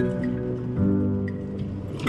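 Background music: sustained chords that change a little under a second in.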